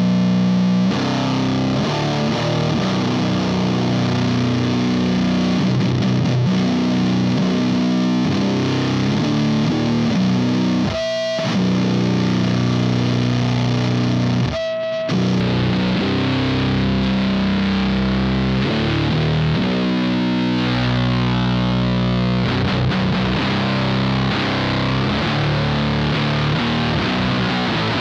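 Electric guitar played through a Does It Doom Elder God fuzz pedal, a silicon Fuzz Face and Green Russian fuzz in one, into a distorted Mesa/Boogie amp: slow doom riffs with long-ringing low chords. The sound cuts out briefly twice, about 11 and 15 seconds in.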